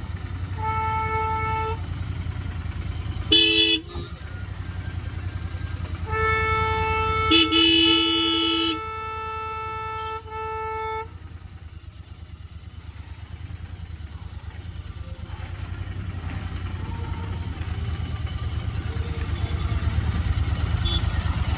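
Motorcycle engine running steadily while riding, getting louder toward the end, with vehicle horns honking over it: a short honk near the start, a brief loud honk around three seconds in, then a long horn blast lasting about five seconds with a second, lower horn sounding over it midway.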